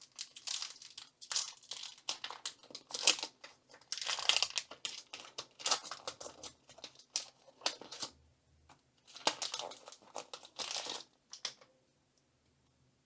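Foil Pokémon booster pack wrapper crinkling and being torn open, in irregular rustling bursts that stop near the end.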